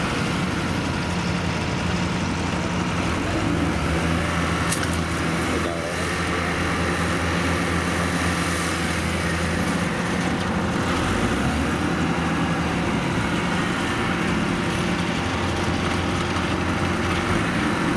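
Heavy diesel engine of farm machinery running steadily, its note shifting slightly about ten seconds in, with a couple of faint clicks around five seconds in.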